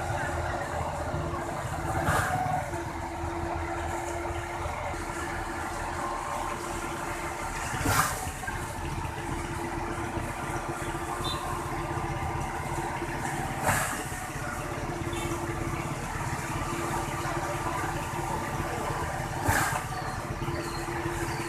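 Concrete mixer truck running with a steady low engine hum. A short rushing burst comes back about every five and a half to six seconds.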